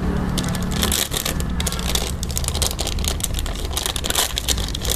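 Paper and plastic wrapping crinkling in rapid, irregular crackles as it is peeled off a new scooter gearbox oil seal, over a steady low hum.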